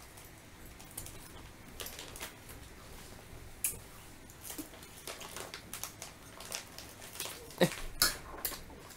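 Two children eating instant noodles from a plate: forks clicking and scraping against the plate, with slurping and mouth sounds. They come as scattered short sounds, with two louder ones close together near the end.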